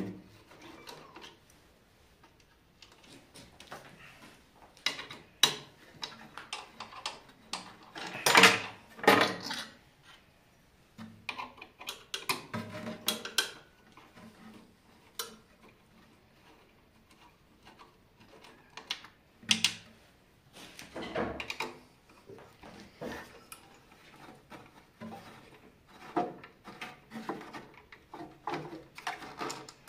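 Irregular metallic clinks, clicks and knocks as a hex key works the bolts and the steel guard and parts of a benchtop thickness planer are handled and lifted off. The machine is switched off. The loudest clatter comes about eight to nine seconds in.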